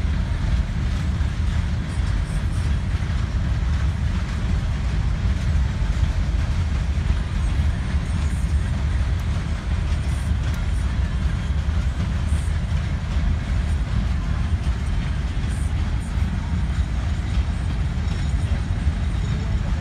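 Freight train of boxcars rolling past, a steady low rumble of wheels on rails.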